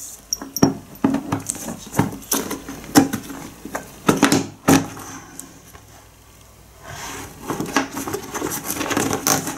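Scattered clicks and knocks of an Ortlieb Ultimate 6 handlebar bag being handled on its plastic handlebar mount. There is a quieter stretch around the middle, then a busier run of small clicks and scrapes near the end.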